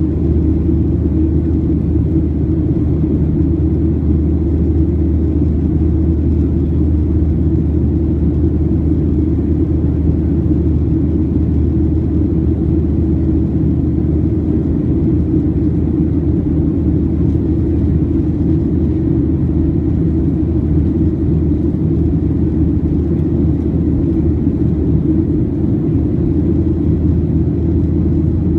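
Steady low rumble of a Boeing 737-700's CFM56 engines and airflow heard inside the passenger cabin in flight after takeoff.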